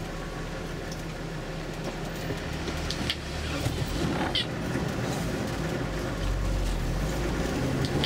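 Interior of a tour bus on a wet road: the engine is running at low speed under a steady rumble of road noise, with a brief high squeak about four seconds in.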